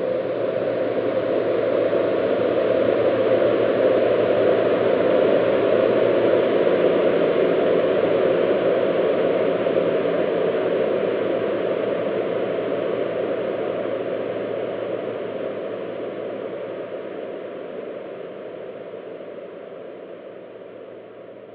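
Sound effect of a swarm of drones: a dense, many-layered whirring hum that builds over the first few seconds, holds, then slowly fades away.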